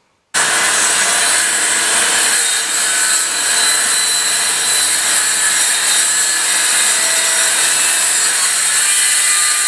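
Handheld circular saw ripping a strip from 15 mm marine plywood along a clamped straightedge, running loud and steady through the cut after starting a moment in.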